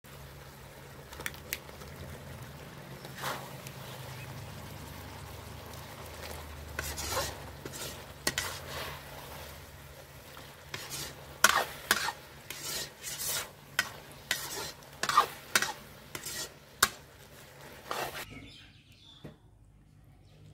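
Steel ladle scraping and knocking against an iron kadai while the thick chilli paneer in it sizzles. The strokes come thick and fast in the second half, and the sizzle cuts off suddenly near the end.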